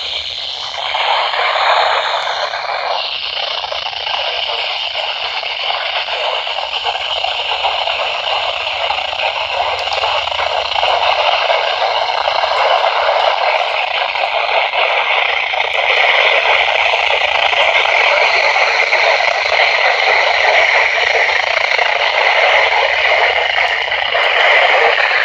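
Static hiss from a weather-band radio receiver tuned to a channel with no clear signal. It is steady and loud, with no voice coming through.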